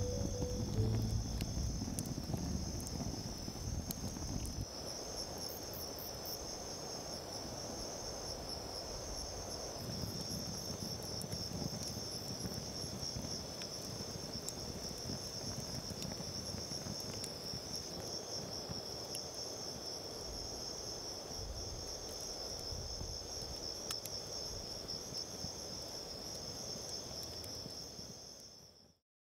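Crickets chirping in a steady, fast high trill, over a wood campfire burning with a low rustle and an occasional faint crackle.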